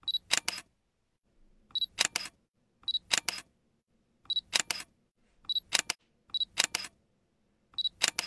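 Digital camera focus beep and shutter sound effect: a short high beep followed by a few quick sharp clicks, repeated seven times about a second apart.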